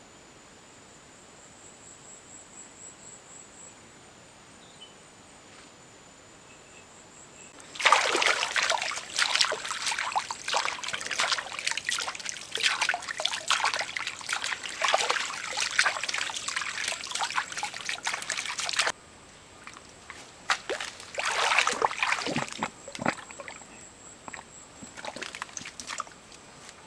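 Water splashing and sloshing in loud, irregular bouts: one long spell starting about eight seconds in and cutting off suddenly, then two shorter ones. Crickets give a steady high chirring in the quieter stretches.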